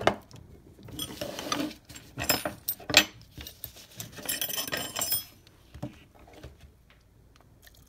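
Clinks, knocks and rustling as metal parts of a disassembled air impact wrench and hand tools are handled on a workbench, growing much quieter in the last couple of seconds.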